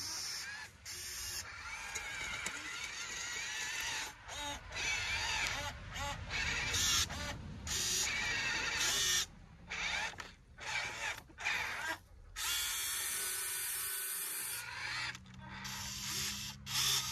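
Small electric motors and gearboxes of a radio-controlled toy construction machine whining as it works, starting and stopping abruptly again and again.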